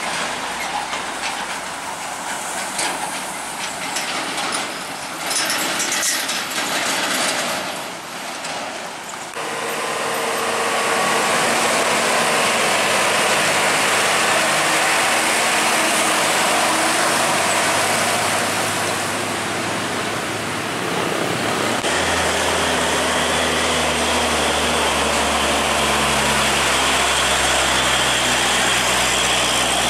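Diesel engines of heavily loaded Hino three-axle trucks pulling up an uphill bend one after another. The first third is mostly tyre and traffic noise with light clicks. Then a steady engine drone sets in, and a deeper rumble joins about two thirds in.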